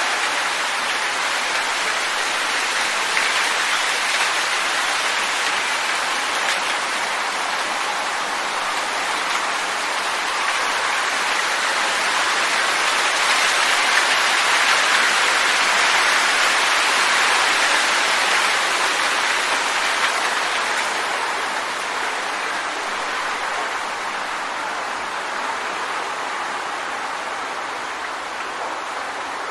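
Strong wind: a steady rushing hiss that swells in a gust around the middle and eases off about two-thirds of the way through.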